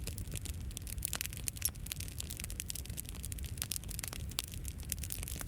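Bonfire crackling: frequent, irregular sharp snaps and pops over a low steady rumble.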